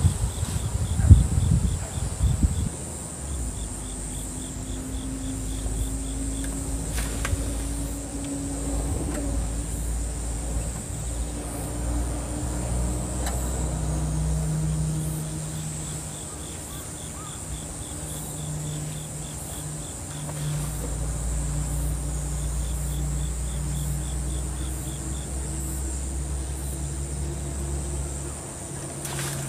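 Insects chirping in repeated short trills, with a low engine hum that comes and goes underneath.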